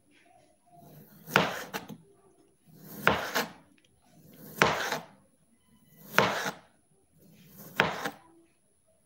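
Kitchen knife slicing a large sausage into rounds on a cutting board: five cuts about a second and a half apart, each a short scrape through the meat ending in a sharp tap of the blade on the board.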